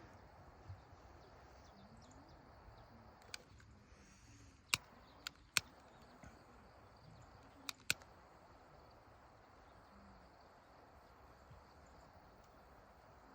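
Campfire crackling: about six sharp, isolated pops between roughly three and eight seconds in, over a quiet, steady outdoor hiss.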